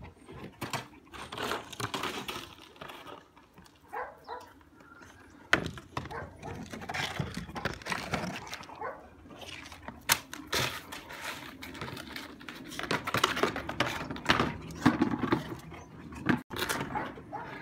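A boxer dog with its head in a plastic bucket, making dog sounds amid irregular knocks and scrapes of the bucket. There is a sharp knock about five seconds in and a couple more around ten seconds.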